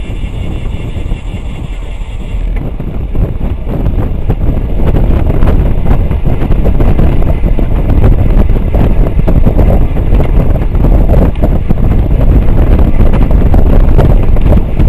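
Wind buffeting a bike-mounted camera's microphone at racing speed, growing louder about four seconds in as the rider sprints. Over the first two and a half seconds a high whirring runs under it, the rear hub's freewheel buzzing while the rider coasts; it stops once he starts pedalling hard.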